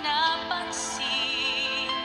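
Music: a woman singing a ballad over instrumental accompaniment, moving into a long held note with vibrato about halfway in.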